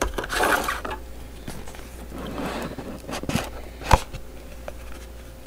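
Cardboard packaging being handled: an inner box sliding out of its sleeve with papery rustling and scraping, and a couple of sharp knocks, the louder one about four seconds in.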